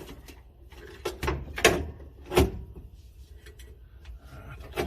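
Parts being handled while working on a truck's wiring: a few sharp knocks and rattles, the loudest three coming a little over a second in, near the middle, and about two and a half seconds in.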